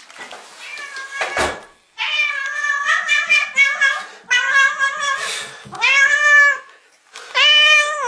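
Domestic cat meowing loudly and repeatedly, four long drawn-out meows following close on each other from about two seconds in, after a short thump. The cat is greeting its owner.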